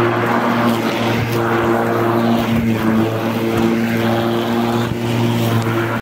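Lawn mower engine running at a steady speed, a constant droning hum.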